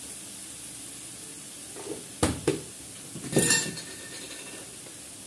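Metal kitchen utensils knocking against a steel kadai: two sharp clicks past the two-second mark, then a louder clattering clink with a metallic ring about three and a half seconds in, over the low steady sizzle of vegetables frying in the pan.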